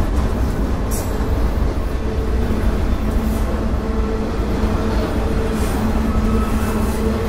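Freight train of autorack cars rolling slowly past: a steady low rumble of steel wheels on rail, with faint humming tones that come and go over it.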